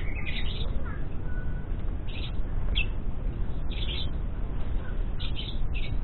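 Lovebird giving about six short, high chirps at irregular intervals over a steady low background rumble.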